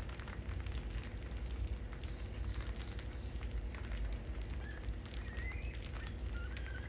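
A crowd of field rats scrabbling and jostling over each other on a tiled floor strewn with rice grains: a dense crackle of claws and rustling, with a few short squeaks in the second half.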